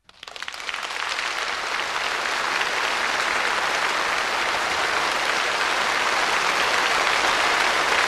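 Audience applauding at the end of a song, the clapping swelling up over the first second and then holding steady.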